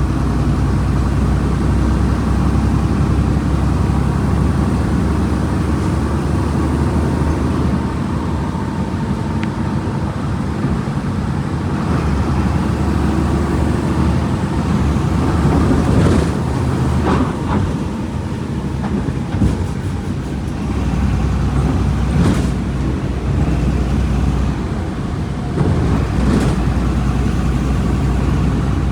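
Diesel engine of a Volkswagen Volksbus 17.230 EOD bus running at a steady speed. A few brief knocks cut through about halfway through, again around two-thirds of the way, and near the end.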